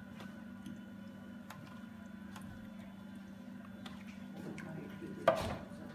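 Faint wet squelching and clicking of hands rubbing a thick yogurt-and-spice marinade into a whole raw chicken, over a steady low hum, with one louder wet sound about five seconds in.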